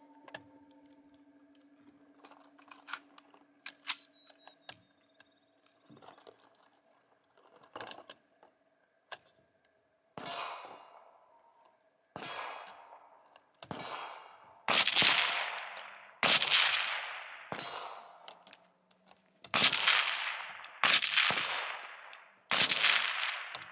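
About ten rifle shots in .308, fired a second or two apart from a barricade, each with a long echoing tail. They start about ten seconds in, after a few faint clicks and knocks.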